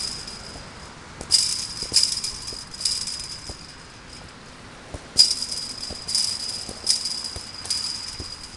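Soccer ball kicked repeatedly against a chain-link fence, the fence rattling with each hit: four quick hits, a pause of about two seconds, then four more.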